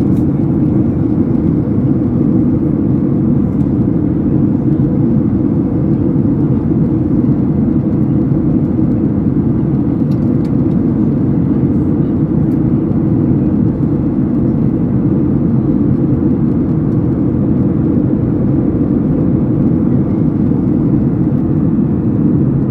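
Steady, deep roar of a Boeing 737 jet airliner in flight at high altitude, as heard inside the passenger cabin: engine and airflow noise that holds level without change.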